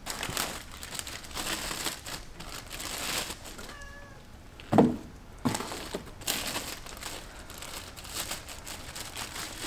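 Plastic bags crinkling and rustling as bagged hardware is handled, with a short cat meow just before four seconds in. About five seconds in comes a dull thump, the loudest sound.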